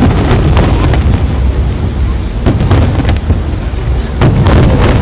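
Fireworks display: aerial shells bursting, several sharp bangs over a continuous deep rumble, the heaviest bang near the end.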